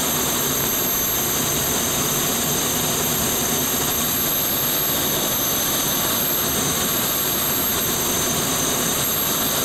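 A BD-5J microjet's small Microturbo TRS-18 turbojet running steadily, heard close up from on the aircraft: an even rushing noise with a constant high-pitched whine.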